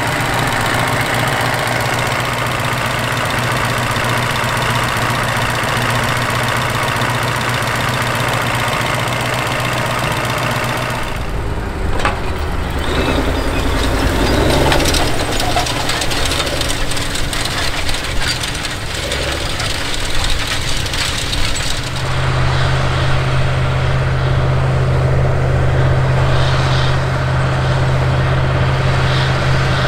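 A Massey Ferguson 4900 tractor's Cummins 903 V8 diesel engine running steadily, heard close up at the engine bay and then working in the field pulling a 30 ft no-till grain drill. The sound shifts abruptly twice, about 11 and 22 seconds in, ending on a strong steady low hum.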